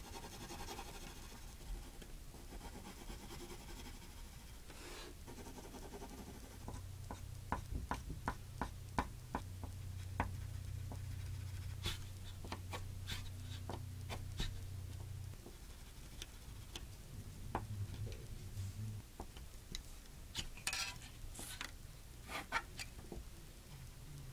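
Pencil and pen strokes rubbing and scratching on drawing paper, with a run of quick taps about three a second a third of the way in. A low steady hum runs through the middle.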